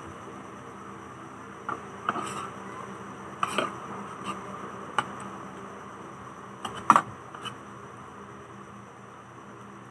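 Metal spoons clicking and scraping on a plate of rice: about ten short, sharp clicks at uneven intervals, the loudest about seven seconds in, over a steady low hum.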